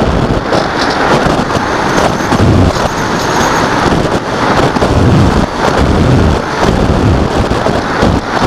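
Airflow buffeting the microphone of a Mobius action camera on a radio-controlled glider in flight: loud, uneven wind noise that swells and dips.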